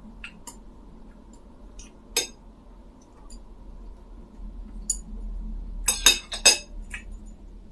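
Tableware clinking as someone eats: scattered light clicks, then a quick run of four or five louder clinks about six seconds in.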